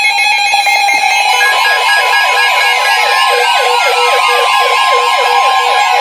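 Several NOAA weather radios sounding their flash flood warning alarms at once. A steady alert tone near 1 kHz is overlapped by rapid warbling beeps, repeating about three times a second, and by slow falling tones.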